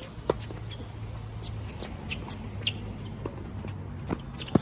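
Tennis rally on an outdoor hard court: sharp pops of rackets striking the ball and the ball bouncing. The loudest hits come about a third of a second in and again just before the end, with quieter ones from the far side of the net between them and shoes scuffing on the court.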